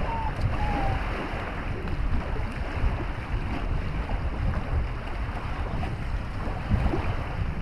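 Wind buffeting the microphone: an uneven low rumble with a steady hiss above it. Two faint short chirps sound in the first second.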